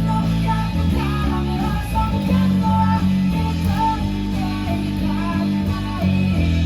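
Band music in an instrumental passage without vocals: an electric bass plays a moving line of low notes under a guitar melody.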